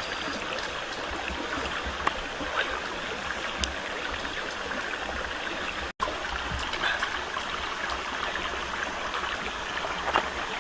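Running water rushing steadily, with scattered small clicks and knocks, and a brief dropout about six seconds in.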